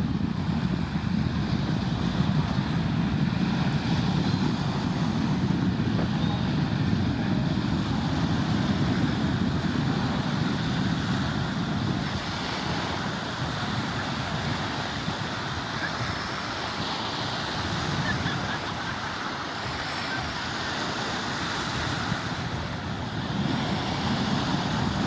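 Small waves washing steadily onto a sandy beach, with wind rumbling on the microphone that eases about halfway through.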